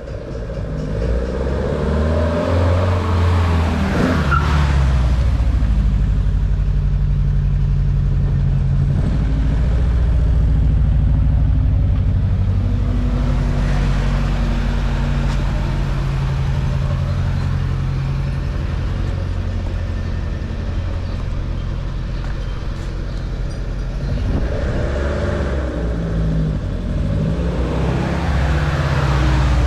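Datsun 510's L20 engine running continuously with a low rumble. Its pitch rises a few seconds in, holds fairly steady, then changes again near the end.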